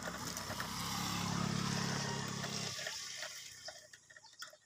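A passing motor vehicle's engine hum swells and fades away about three seconds in. Light clicks follow from a hand wrench working a bolt on the bag bracket.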